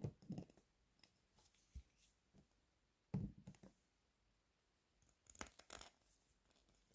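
Faint clicks and taps of small pliers and tiny plastic model parts being handled on a desk, with a soft knock about three seconds in and a few sharper clicks about five and a half seconds in.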